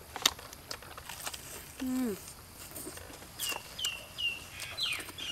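Crunching of crispy fried chicken being bitten and chewed, a few sharp clicks, with a short falling 'mm' from an eater about two seconds in; from a little past three seconds a bird chirps several high notes that slide downward.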